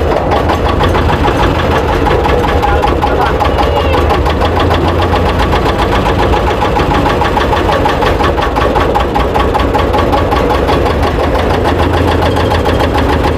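Small inboard boat engine running steadily with a fast, even knocking beat.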